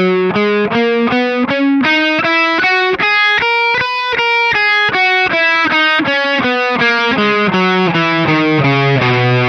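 Distorted electric guitar, a Les Paul-style solid body, playing a C major scale one note at a time, climbing up and then coming back down at about four to five notes a second. Each note sounds clean and separate with no strings ringing over, because the picking-hand palm lightly mutes the strings left behind.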